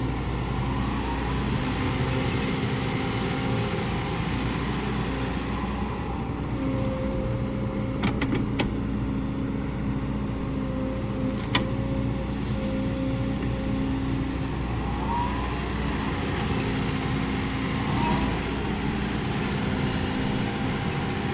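Kobelco SK75 mini excavator's diesel engine running steadily while it works, with a few sharp knocks about 8 and 11½ seconds in and a couple of brief whines near the end.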